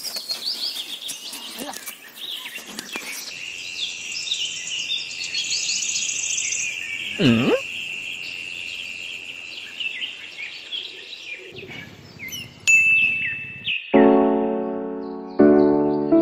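Birds chirping and trilling, with a steady high trill running through the first part. A swooping cartoon-style sound effect that dips low and rises again comes about seven seconds in, and piano music starts near the end.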